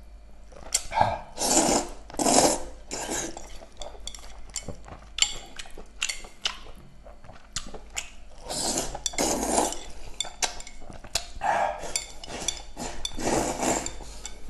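Instant noodles being slurped up and chewed close to the microphone, in several bursts of slurping, with small wet clicks of chewing and chopsticks in between.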